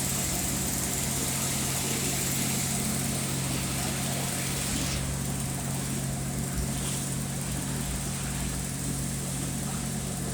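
Steady electrical hum of a welding setup, with a high hiss that cuts off suddenly about five seconds in, as the TIG arc stops.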